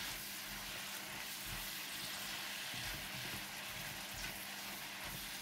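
Sliced pork, chicken, carrot and fish cake sizzling steadily in a wok with oil and seasoning sauce as they are stir-fried with a silicone spatula.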